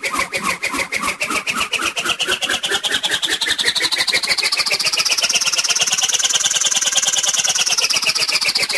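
Cartoon whoosh sound effect: a rapidly pulsing whir whose pitch climbs slowly for about six seconds, then sinks again near the end.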